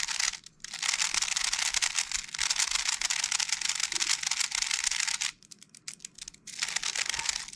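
Metallic 3x3 speed cube being turned rapidly in the hands: a dense run of fast clicking layer turns. It stops for about a second near the end, then starts again.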